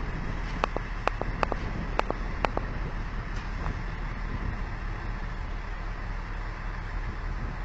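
Steady low rumble of a vehicle or heavy machine running. A quick run of sharp knocks or clicks comes between about half a second and two and a half seconds in.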